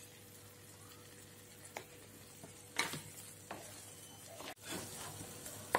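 Wooden spatula stirring and scraping thick mashed-potato masala in a frying pan, with faint sizzling. The stirring starts about one and a half seconds in as a few scattered scrapes and soft knocks on the pan.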